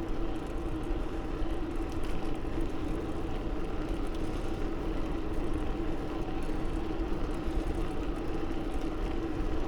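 Steady riding noise of a bicycle on a paved path: wind rushing past and tyre noise, with a steady low hum.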